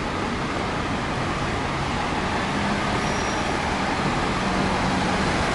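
Road traffic on a city street: a steady wash of vehicle noise, with a low engine hum coming in about halfway through as the noise grows a little louder.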